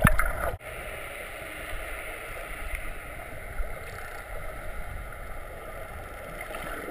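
Steady rushing noise of wind and water. A louder, rumbling stretch cuts off abruptly about half a second in.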